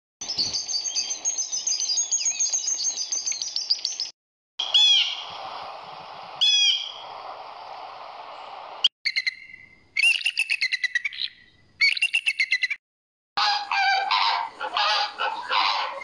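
A run of separate bird recordings, each a few seconds long with short breaks between them. First a sparrow chirps rapidly and high. Then another bird gives two single sweeping calls, then short repeated blue jay calls, and near the end a flamingo calls over and over, fuller and lower than the rest.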